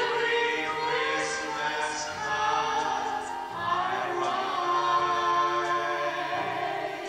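A woman singing a slow song into a handheld microphone, holding long notes with vibrato over instrumental accompaniment.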